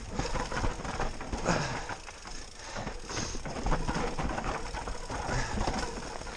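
Mountain bike descending a steep dirt trail: the tyres crunch and skid over dirt and loose stones, the bike rattles over bumps, and the rear hub's freewheel clicks as it coasts. Dense, irregular clicking and knocking, with a few louder jolts.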